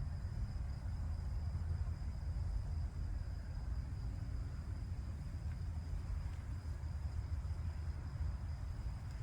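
Night ambience outdoors: a steady low rumble with a faint, continuous high-pitched insect trill above it.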